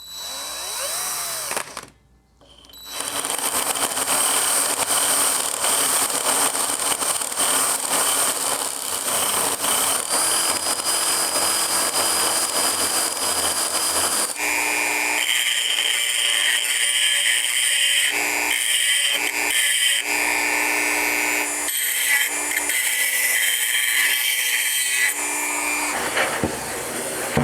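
Handheld power tool running steadily as it widens a hole in the unit's housing for a knob. It starts about three seconds in, and its tone changes about halfway through.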